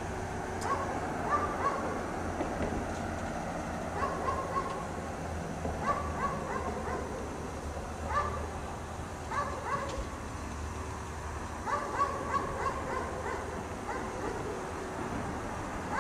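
A chained dog barking over and over, single barks and quick pairs or triplets every second or two, over a steady low hum.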